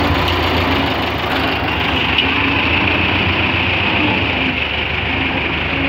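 Belarus 510 tractor's diesel engine running steadily and loudly, with a hissing noise over it from about two seconds in.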